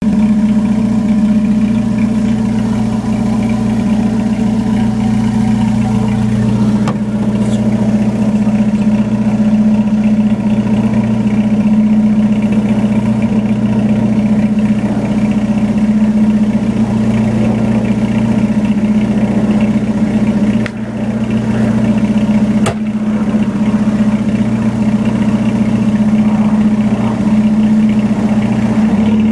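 1999 Chevrolet S10's 2.2-litre four-cylinder engine idling steadily through true dual Flowmaster Street mufflers, heard at the tailpipes. It has a loud, raspy exhaust note, with an airy hiss that the owner puts down to a leak in the exhaust manifold.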